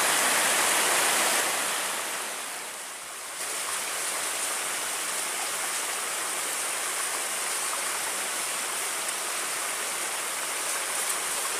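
Rushing river water, a steady hiss that dips about two seconds in and then carries on slightly quieter.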